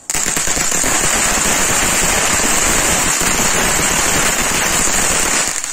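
Ground fountain firework (anar) spraying sparks with a loud, steady hiss that starts abruptly and fades near the end.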